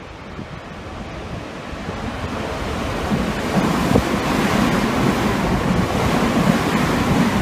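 Electric train passing through a station at high speed without stopping: a rushing noise that builds from about two seconds in and stays loud, with a few short knocks from the wheels.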